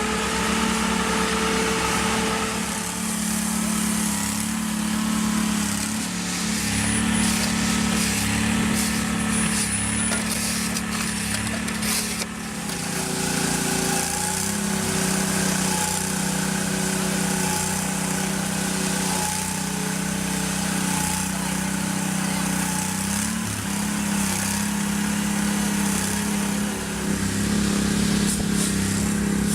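Engine of a heavy construction machine running steadily under work, a constant hum with small shifts in pitch; the sound changes character about twelve seconds in.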